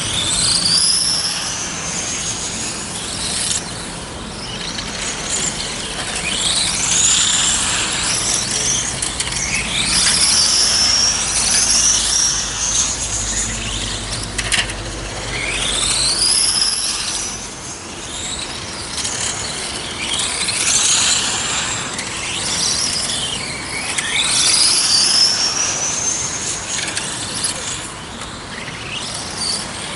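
Electric radio-controlled race cars lapping the track: high-pitched motor whines that climb in pitch as each car accelerates out of a corner and drop off into braking, overlapping and repeating every few seconds.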